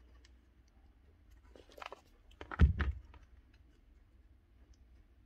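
Hard parts being handled on a workbench as a power-tool motor stator and red plastic housing halves are fitted together: a few light clicks, then a quick cluster of louder knocks about two and a half seconds in, the loudest with a low thud.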